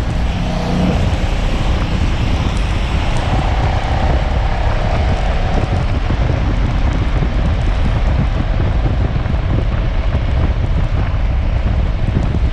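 Loud, steady wind noise buffeting the microphone of a moving motorcycle, with the bike's engine running underneath.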